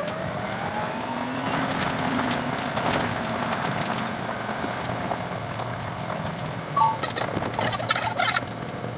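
Train running sounds played back at ten times speed: wheel and rail noise and rail-joint clicks run together into a fast, warbling chatter, with a rising whine in the first couple of seconds.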